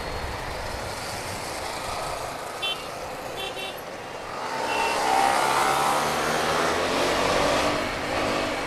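Motorcycle riding on the road: steady wind and road noise, with an engine growing louder about halfway through and its pitch gliding slowly. Two faint short beeps come near the middle.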